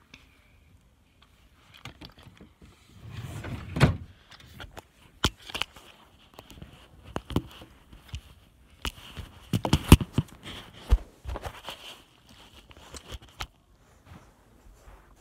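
Handling noise from a phone camera being moved about and set down on a carpeted floor: irregular knocks and clicks on the microphone with rustling of fabric, the loudest knock about ten seconds in.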